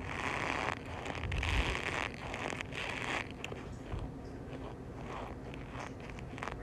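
Cornstarch being squeezed and crunched, a string of squeaky crunches that is loudest in the first three seconds or so and softer after.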